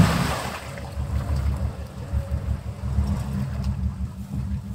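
Engine of a stuck Chevy 4x4 falling back from a rev to a low, uneven idle about half a second in.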